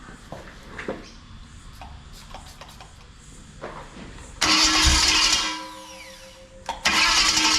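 Freshly rebuilt Ford 302 Windsor small-block V8, without mufflers, being cranked over for its first start: a loud burst about four and a half seconds in that dies away with a falling whine, then a second loud burst near the end as it catches. Before that, only faint clicks.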